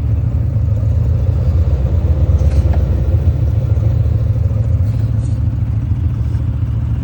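1978 Chevrolet Corvette's L-82 350 small-block V8 idling steadily, a deep, even exhaust rumble.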